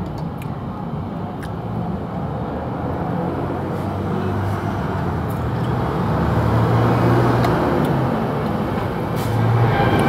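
Road traffic noise, with a motor vehicle's engine running close by and growing gradually louder.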